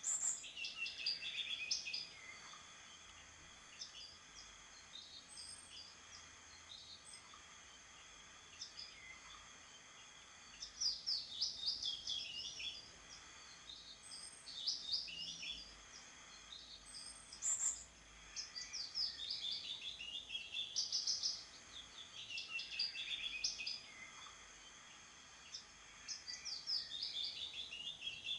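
Songbirds singing: quick high chirping phrases, many falling in pitch, repeated in bouts every few seconds over a faint steady background.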